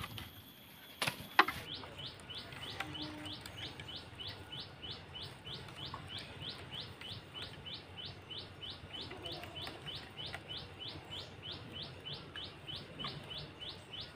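A couple of sharp knocks just over a second in, then a bird repeating a short, falling chirp over and over, about three times a second.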